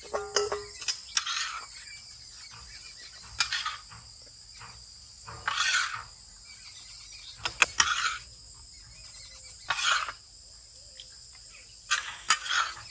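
A long metal spatula scraping and clinking against a wide iron pan as cooked meat is scooped into a steel bowl, in short bursts every two seconds or so. Under it runs a steady high drone of insects.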